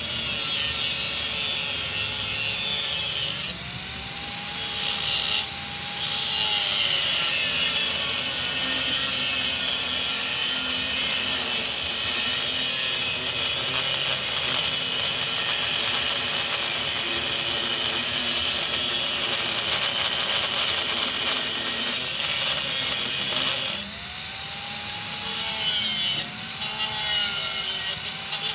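An electric power tool works on steel with a harsh, steady hiss. Its motor pitch sags under load and picks back up twice, about four seconds in and again near the end.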